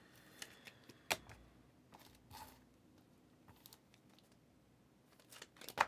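Faint, scattered clicks and taps of trading cards being handled and set down on a table, the sharpest about a second in and a quick cluster near the end.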